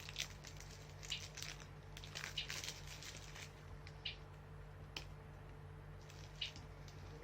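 Faint, scattered crinkles and crunches of a Violet Crumble honeycomb chocolate bar being unwrapped and bitten into, with one sharp click about five seconds in.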